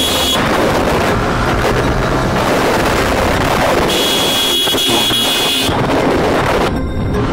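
Yamaha R15 V4's 155 cc single-cylinder engine running at low speed in traffic, with wind noise on the helmet microphone. A high steady tone sounds twice, the second time for about a second and a half, and near the end the hiss drops off suddenly.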